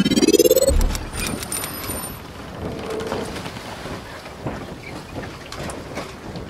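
Logo intro sound effects: a rising whoosh that ends in a low thump just under a second in, high ringing tones for about a second after it, then a steady rain-like hiss.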